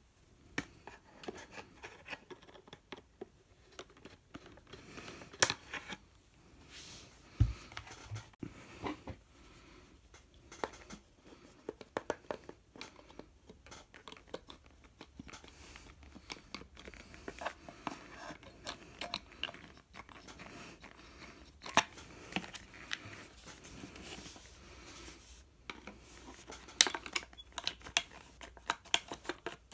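Irregular plastic clicks and scraping from a flat-blade screwdriver prying the trim cover and its clips off a Toyota Yaris steering wheel's metal frame, with a few louder sharp clicks among them.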